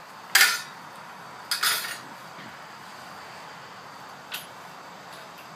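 Empty brass cartridge cases clinking against the aluminium cake-tin wheel of a home-built case annealer as it turns and feeds them: two sharp metallic clinks in the first two seconds and a lighter one about four seconds in.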